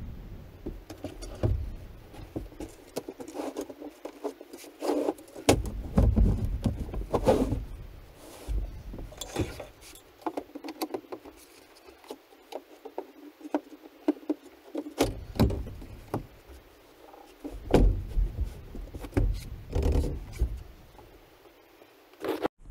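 A wooden pull-out sofa bed frame with slats being slid out and set up by hand: irregular knocks, clunks and rattles of wood, with heavier thuds in a few stretches as the extension is pulled out, the support legs put in and the cushions flipped down.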